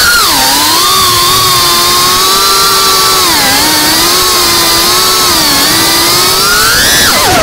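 GEPRC Cinelog 35 FPV cinewhoop's brushless motors whining, their pitch sliding up and down with the throttle over a rush of air. Near the end the whine climbs sharply, then drops away.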